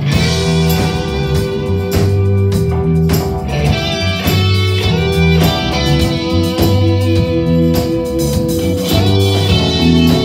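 Live rock band playing an instrumental passage: electric guitars over bass and a drum kit beating a steady rhythm, with long held guitar notes.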